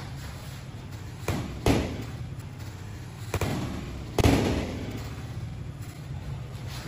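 Gloved blows thudding as the two sparring fighters land strikes on each other: four sharp thuds, the loudest about four seconds in.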